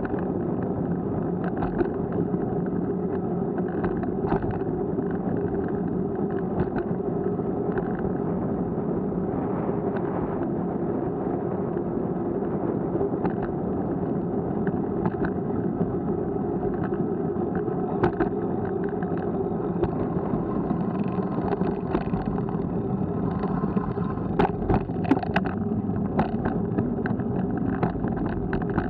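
Steady rolling noise of wheels running over asphalt, picked up by an action camera riding along with them, with short sharp knocks and rattles at bumps. The knocks come thicker late on, as the surface turns cracked and patched.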